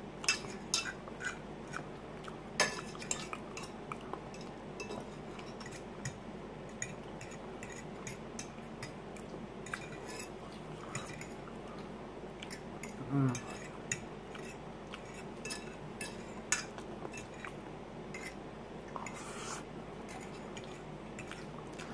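Metal fork clinking and scraping against a china plate in scattered small clicks as food is picked up and eaten, with a short low hum about halfway through.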